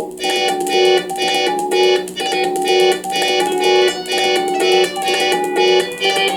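Commodore 64 SFX Sound Expander's Yamaha FM synthesis chip playing General MIDI music: a plucked guitar-like voice and held synth notes over a steady pulse about twice a second.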